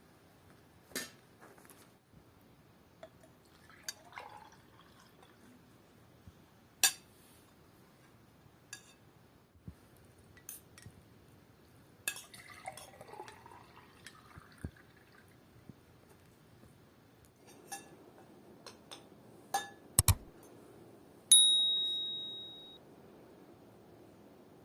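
Tableware being handled: scattered clinks and knocks of dishes and glasses. About three-quarters of the way in, one strike leaves a glass or ceramic piece ringing on a clear high tone that fades over about a second and a half.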